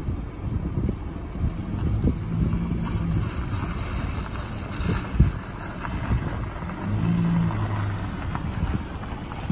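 Dodge Charger's engine rumbling as the car does donuts, with wind buffeting the microphone. The engine settles into a steady note twice, about two seconds in and again around seven seconds.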